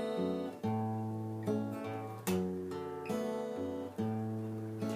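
Acoustic guitar being strummed, with a new chord struck about every second and left to ring.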